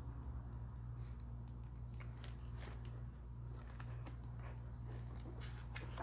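Hardcover picture book being opened and its pages turned: faint scattered rustles and soft clicks of paper and cover, over a low steady hum.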